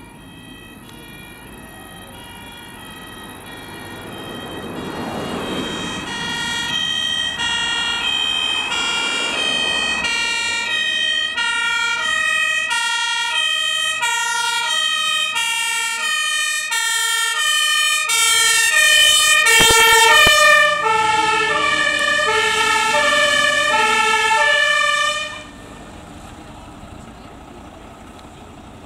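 Dutch fire engine's two-tone siren, alternating between two pitches, growing louder as the truck approaches and then switched off suddenly as it reaches the scene, leaving the truck's engine running.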